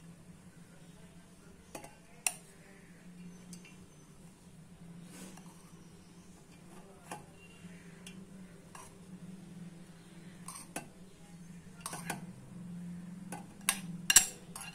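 A utensil scraping and clinking against a stainless steel mixer jar as soaked rice rava and poha are scooped into it. The clinks are scattered, grow more frequent and louder toward the end, and sit over a faint steady low hum.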